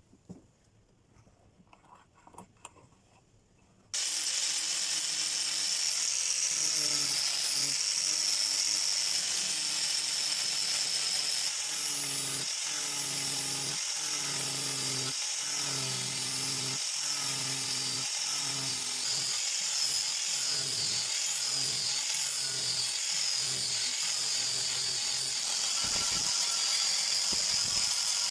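Electric power grinder working steel, starting suddenly a few seconds in and running steadily, its sound pulsing about once or twice a second through the middle as the work is pressed on and eased off.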